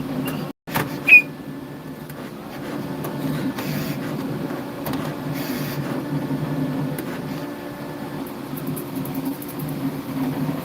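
A 3D printer running: a steady, wavering low motor hum. The sound cuts out briefly about half a second in, then a short high chirp about a second in is the loudest moment.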